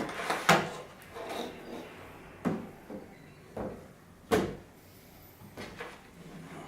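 A handful of irregular knocks and clatters from handling a car stereo head unit and its plug-in cables and connectors. The loudest knock comes a little over four seconds in.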